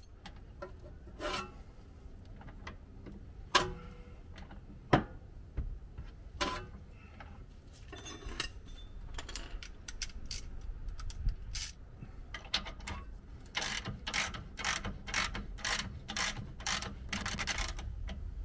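Hand tools working rear suspension bolts: scattered metal clinks and two sharp knocks in the first five seconds, then a socket ratchet clicking in quick, evenly spaced strokes, about two or three a second, for several seconds near the end.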